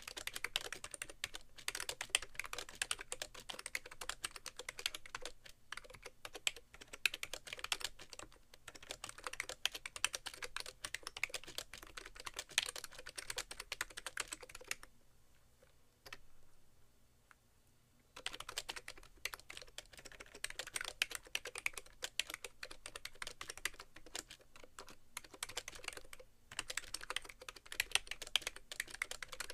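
Fast typing on a BTC 5100c (SIIG MiniTouch Plus) mini keyboard with rubber-dome-over-slider keys, a rapid, continuous patter of key presses. The typing stops for about three seconds midway, then starts again.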